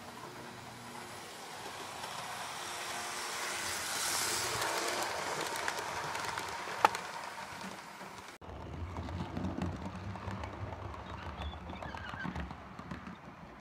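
Model trains running on a layout. A rake of coaches rolls past close by, its wheel-on-track rumble swelling to a peak about four seconds in and then easing, with one sharp click just before seven seconds. About eight seconds in the sound cuts abruptly to another model train, a small black steam-outline locomotive with coaches, running with a lower rumble and uneven knocks.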